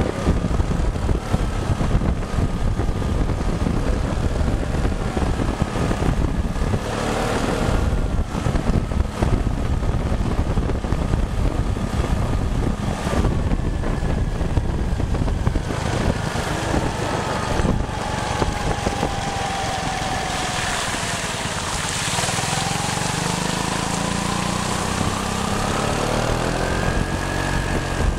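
Riding a CFMoto NK400 motorcycle: steady wind and road noise on the rider's microphone over the engine running underneath. The engine note drops about two-thirds of the way through, then climbs again near the end.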